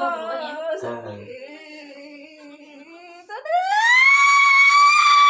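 A person crying out in pain under pressure-point massage on the foot: a low drawn-out moan, then about three seconds in a long, high-pitched scream that rises and holds for about two seconds.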